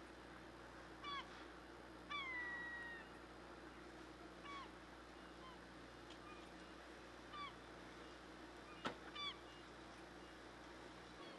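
Gulls calling: about six short cries that drop in pitch, the loudest and longest about two seconds in, drawn out for nearly a second. Under them runs a steady low machinery hum, and a single sharp click comes near the end.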